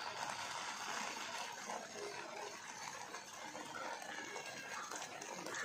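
Carrot halwa, grated carrot cooked in milk with sugar, simmering in a pan: a faint, steady hiss of small bubbles as the mixture, thinned by the sugar, cooks down.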